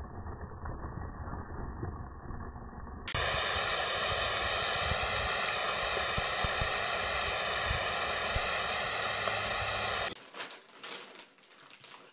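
Loud, steady hiss of water spraying from a hose for about seven seconds, cutting off suddenly. Before it there is a low rumbling noise, and after it a few faint clicks.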